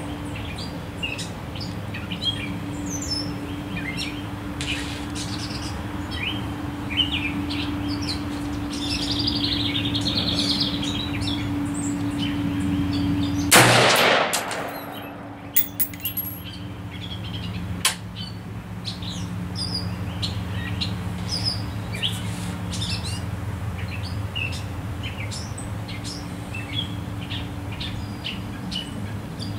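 A single rifle shot from a DPMS Oracle AR-15, about halfway through, sharp and by far the loudest sound. Songbirds chirp throughout.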